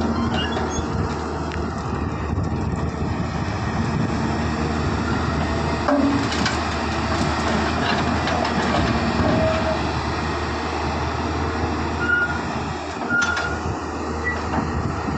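Hydraulic excavator working: its diesel engine runs steadily under load while it digs soil and loads it into a truck, with a few short clanks along the way.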